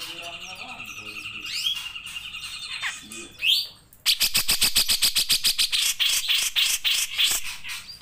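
Grey-cheeked bulbul (cucak jenggot) singing: a long trilled whistle with a few rising notes for about three seconds. After a brief pause it gives a fast, even rattle of sharp knocking notes, about seven a second, for some three and a half seconds.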